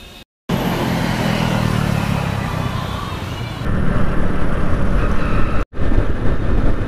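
Motorcycle engine running under way, with wind rushing over the microphone. It starts abruptly about half a second in, gets louder a little before the four-second mark, and drops out for an instant near the end.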